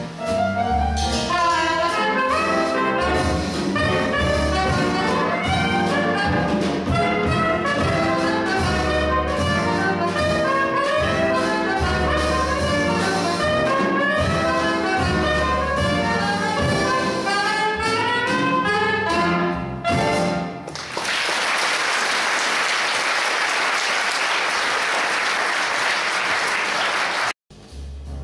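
A jazz band plays swing, a soprano saxophone leading over piano, double bass and drums. About twenty seconds in the playing stops and the audience applauds the solo for about six seconds, until a sudden cut near the end.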